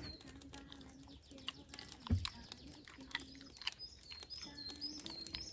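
Small songbirds chirping in the forest, with scattered small clicks and a single thump about two seconds in.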